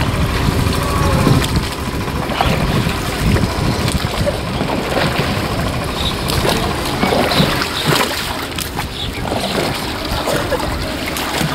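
Rowboat's wooden oars dipping and splashing in river water, with a few short knocks scattered through.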